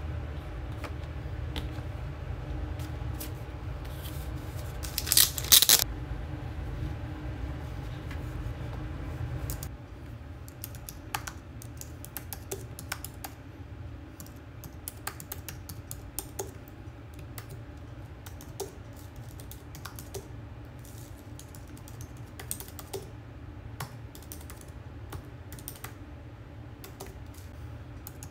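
Typing on a computer keyboard: fast, irregular key clicks, with a brief louder clatter about five seconds in.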